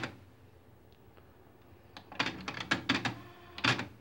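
Pioneer CT-W203 cassette deck's transport keys and tape mechanism clicking: a sharp click at the very start, then from about two seconds in a quick run of clicks and clunks, with a louder click near the end.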